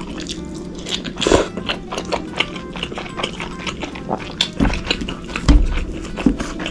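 Close-up eating: chewing and biting food, with many small wet clicks and three dull low thumps in the second half, over background music.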